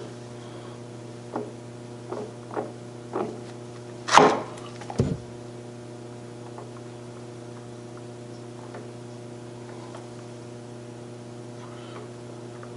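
Metal lathe chuck turned slowly by hand, giving a handful of short knocks and clicks in the first five seconds, the loudest about four seconds in, over a steady shop hum.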